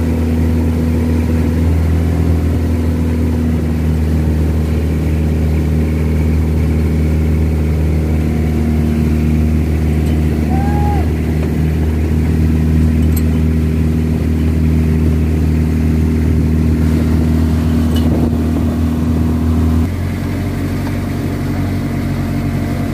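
Outrigger fishing boat's engine running steadily under way, with water rushing along the hull and outrigger. About 20 s in the engine note changes and becomes a little quieter.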